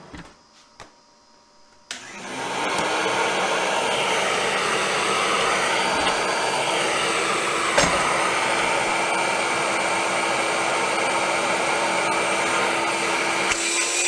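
An electric power-tool motor switches on about two seconds in, quickly comes up to speed and runs steadily with a faint whine that creeps slightly higher; a single sharp click sounds about halfway through.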